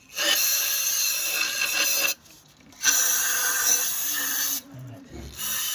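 Three hissing spray bursts of about two seconds each, as the inside of a sooty, oil-fouled intake air hose is sprayed out to wash the grime from it.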